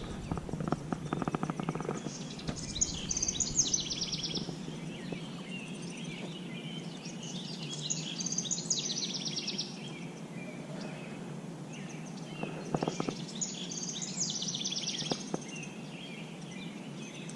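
Outdoor background hiss with a songbird singing the same quick high phrase three times, about every five to six seconds. A few faint clicks in the first two seconds.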